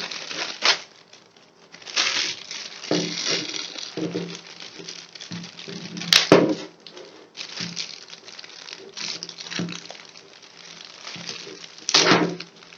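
A headset's packaging cover being crinkled and pulled off by hand: irregular rustling and crinkling, with sharper, louder crackles about six seconds in and again near the end.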